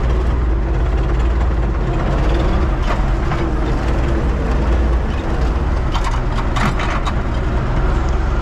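UTB Universal 650 tractor's four-cylinder diesel engine running steadily while pulling a seed drill, with a few brief rattles about three seconds in and again around six to seven seconds.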